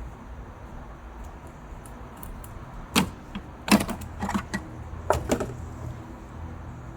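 Sharp clicks and knocks from hand work on a heater hose T connector's fittings: one about three seconds in, a quick cluster just after, and a couple more a second later.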